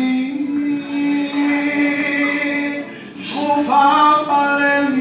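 A man singing a gospel song, holding long notes, with a short break and a new phrase about three seconds in.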